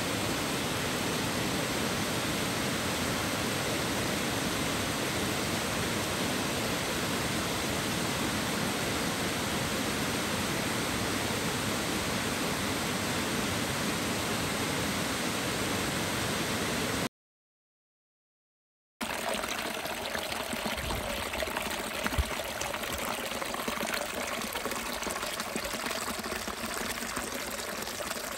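Waterfall rushing in a dense, steady roar of water. It cuts off to about two seconds of dead silence partway through, then gives way to a smaller stream trickling and splashing over stones, thinner and with less low rumble, with one brief knock soon after it starts.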